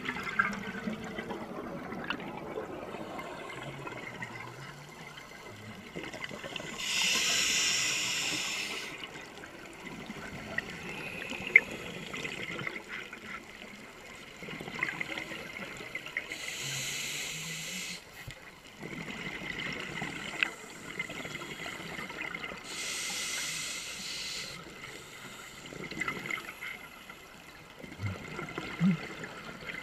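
Underwater recording of a scuba diver breathing through a regulator. Three loud bursts of hiss and bubbles, each about two seconds long and about seven seconds apart, rise over a steady low water noise, and there is one sharp click in between.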